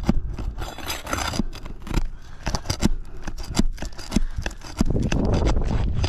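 Brittle asphalt roof shingle being pried up with a tool to reach the nail: a run of sharp clicks, crunches and scrapes, getting denser and louder about five seconds in, over a low rumble.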